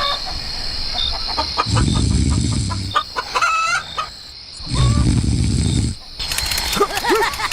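Chickens clucking and calling in short rising notes, with a low rumble that comes and goes twice.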